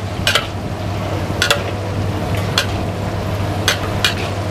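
Metal ladle scraping and knocking against a wok while stir-frying vegetables, about one sharp clack a second. Under it run a steady low hum and the sizzle of frying.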